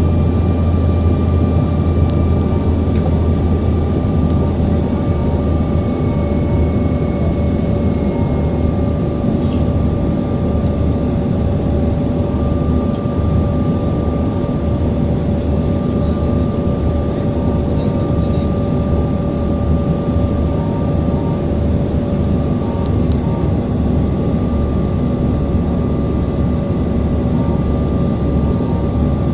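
Airliner cabin noise: a steady drone of engines and airflow heard from inside the passenger cabin, with two steady tones running through it.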